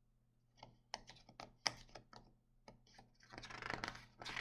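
Faint paper handling on a hardcover picture book: a scatter of small crackling clicks as fingers work the pages, then a soft swish near the end as a page is taken by its edge to be turned.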